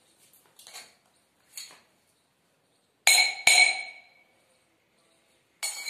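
A spoon struck against a drinking glass twice, about half a second apart, each strike ringing briefly with a bright, sharp tone; another ringing strike comes near the end.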